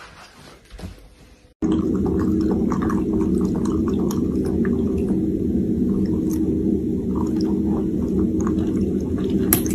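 German Shepherd puppy lapping from a bowl: loud, continuous wet slurping and splashing that starts suddenly about a second and a half in.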